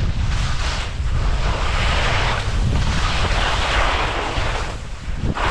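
Skis scraping and hissing over soft spring snow through a series of mogul turns, the hiss swelling with each turn, over a constant low rumble of wind buffeting the camera microphone.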